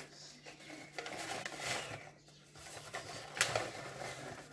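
Sugar being poured from a bag into a mixing bowl, a grainy rustling and rattling that comes in two stretches, with a few sharp clicks in the second.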